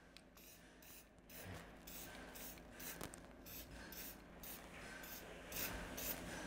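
Faint, repeated rubbing and scraping strokes, a few a second, as new main bearing shells are pressed and rubbed into the saddles of an aluminium engine block.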